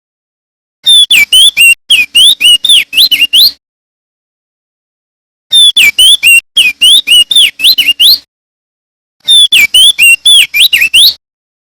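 Male opior jambul (crested darkeye) singing loudly: three bursts of rapid, swooping whistled notes, each lasting two to three seconds, with clean silent gaps between them.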